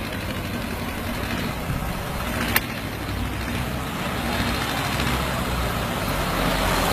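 Heavy-haul truck engine running with a steady low rumble that grows slightly louder toward the end, with one sharp click about two and a half seconds in.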